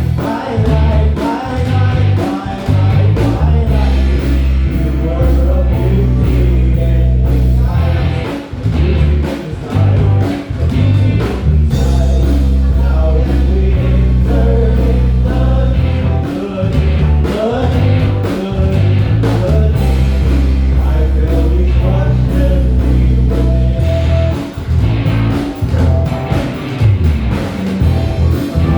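Live band playing an instrumental passage: electric bass and drum kit driving a steady groove under keyboard chords, with a melodic lead line weaving over the top.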